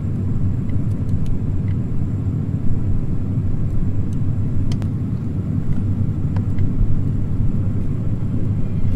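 A deep, steady rumble from an anime soundtrack, with a few faint high ticks over it.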